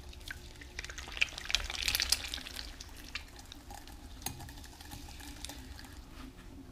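Wet clay being centered by hand on a spinning potter's wheel: slippery squelching and splashing of slip under the hands, busiest about one to two and a half seconds in, over the steady hum of the electric wheel.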